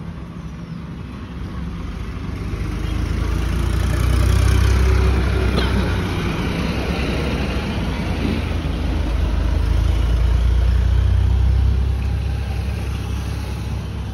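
Road traffic noise: a low rumble with tyre hiss that swells twice as vehicles pass.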